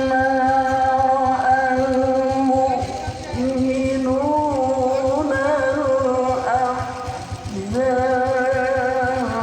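Singing or chanting with long, drawn-out notes that waver in ornamented turns, with short breaks about three seconds in and near the end, over a steady low pulsing.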